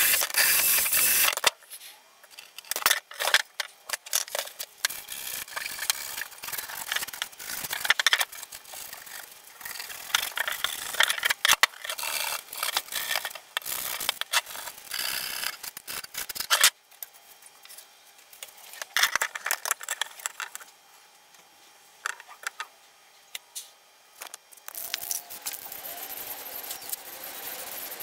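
A cordless drill with a wire cup brush scrubbing a thin metal clock frame, stopping about a second and a half in. Then irregular metallic rattling, clinking and scraping as the loose metal frame is moved and handled.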